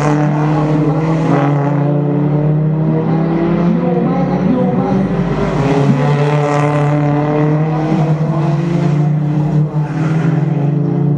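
Toyota Corolla Altis one-make race cars' engines running as the cars come through a corner one after another: a loud, continuous engine drone whose pitch slowly shifts.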